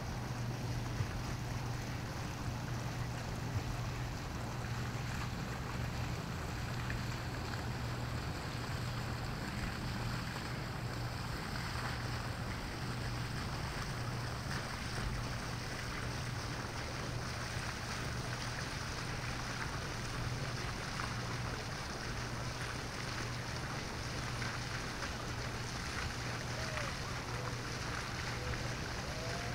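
Steady outdoor ambience of wind and lapping water, with a constant low hum underneath.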